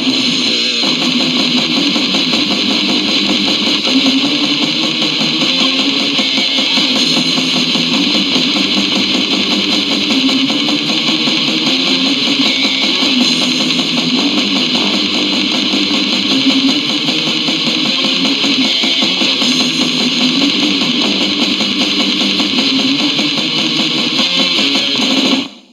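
Metal track from a CD, with electric guitars playing at a constant loud level in a dense wall of sound. It cuts off abruptly right at the end.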